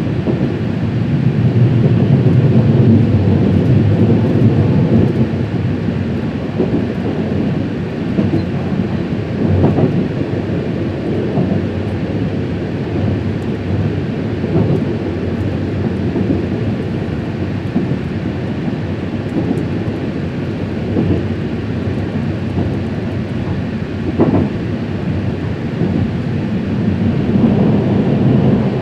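A train passing along the track: a steady low rumble, loudest in the first few seconds, with brief swells twice later on.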